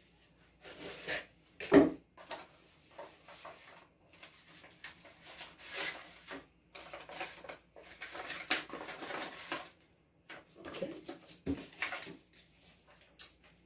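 Paper envelope being slit open with a folding knife and torn, then paper rustling and crinkling in uneven bursts as the contents are pulled out and unfolded. A sharp knock about two seconds in, and a smaller one near the end.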